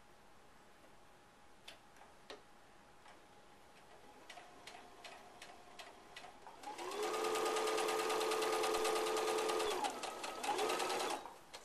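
Baby Lock Grace sewing machine stitching binding onto a quilt with a quarter-inch foot. After a couple of light clicks it starts with a few slow stitches, then runs fast and steady for about three seconds with its motor whine rising and settling. It stops briefly, then sews a short final burst.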